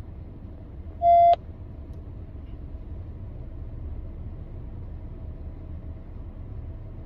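Steady low rumble of a car's cabin, broken about a second in by one short, loud beep lasting about a third of a second.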